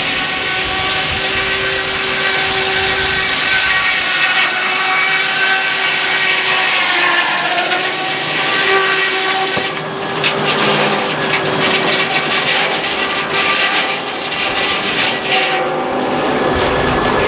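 Sawmill saw blade cutting through a log, giving a steady singing whine that dips in pitch for a moment about halfway through, with gritty crackling as the cut goes on.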